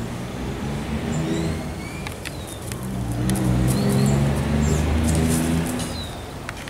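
A motor vehicle's engine hum that swells to a peak about four seconds in and then fades, as if passing by. Small birds chirp briefly over it.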